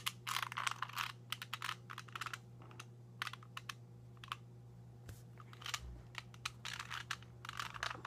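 ShengShou 2x2 speed cube being turned by hand, its plastic layers clicking and clacking in quick runs with short pauses between them. The owner fears the cube has come loose enough to risk internal bandaging.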